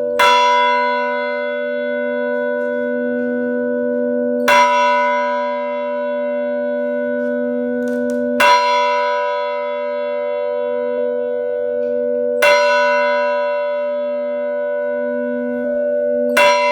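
Mission church bell tolling the noon hour: struck five times, about every four seconds, each stroke ringing on into the next with the same deep hum underneath.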